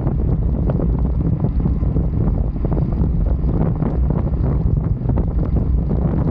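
Wind buffeting the microphone of an Insta360 camera carried on a road bike at racing speed: a steady, heavy rush with a constant low rumble.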